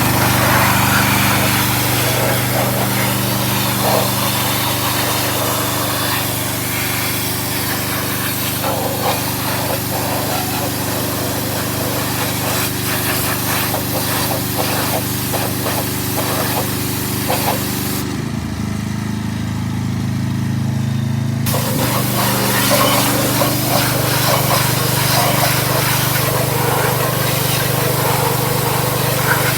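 Pressure washer running steadily, its spray hissing against a Toyota Camry engine. About eighteen seconds in, the spray stops for roughly three seconds while the machine keeps running at a changed note, then spraying starts again.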